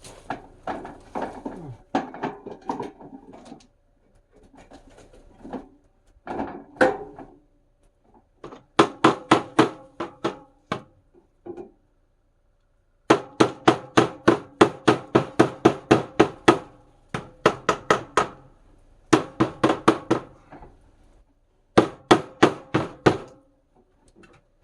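Rapid hammer blows on a sheet-metal wood-stove flue pipe, each hit ringing in the pipe: some loose clattering at first, then four runs of quick strikes, about five a second, with short pauses between; the outside chimney elbow is being knocked loose to take it apart.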